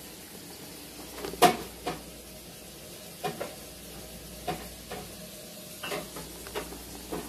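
A metal spoon knocking against the stoneware insert of a small crock pot of melted cheese and salsa, about eight sharp knocks with the loudest about one and a half seconds in, over a faint steady sizzle of frying food.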